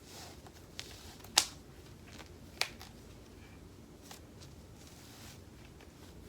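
Objects being handled: a few sharp clicks and taps, the loudest about a second and a half in, with soft rustling between them.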